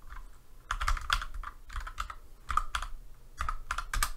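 Computer keyboard typing: short runs of key clicks as a short command is typed in, with pauses between the runs.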